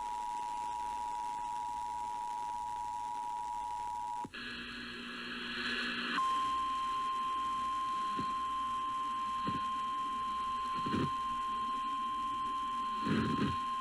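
Emergency alert tones. First the two-tone EAS attention signal sounds steadily and cuts off about four seconds in. After a brief stretch of radio noise, the single steady tone of a NOAA Weather Radio warning alarm begins about six seconds in and holds, announcing a warning broadcast.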